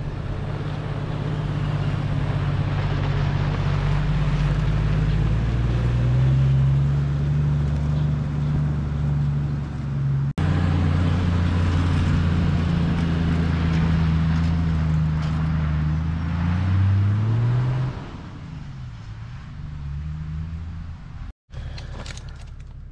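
Toyota LandCruiser Troopcarrier's engine running as it drives, its pitch stepping up and down several times. Near the end the note rises briefly, then falls and gets quieter as the vehicle slows.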